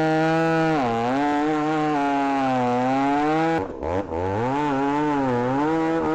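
Ported and piped Stihl MS310 two-stroke chainsaw with a 28-inch bar sawing cherry slabwood at full throttle, its pitch sagging and recovering as the chain loads in the cut. About three and a half seconds in the engine briefly drops off, then revs back up.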